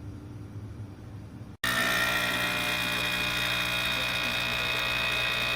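Capsule espresso machine's pump running with a steady, loud buzz as it brews, starting abruptly about one and a half seconds in after a faint low hum.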